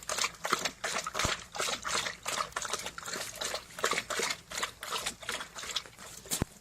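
Quick, irregular wet splashing with sharp clicks, several a second, steady in pace throughout.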